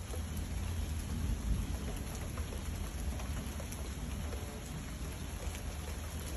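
Thunderstorm: steady rain with scattered drops ticking close by, over a low rumble of distant thunder that swells a little about a second and a half in.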